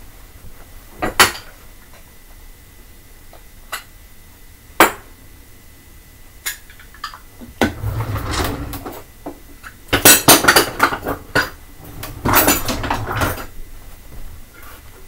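Dishes being washed by hand: crockery and cutlery clinking and clattering. A few single sharp clinks come first, then busier runs of clattering and scraping about eight, ten and twelve seconds in.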